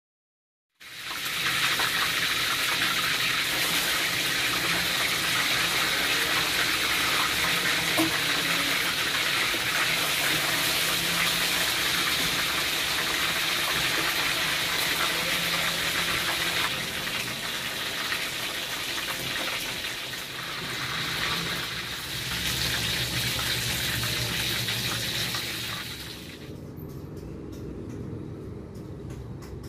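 Pre-boiled chicken pieces deep-frying in hot oil in a wok: a loud, dense sizzle full of crackles, the oil spitting readily because the chicken was boiled first. The sizzle cuts off abruptly near the end, leaving a quieter low background.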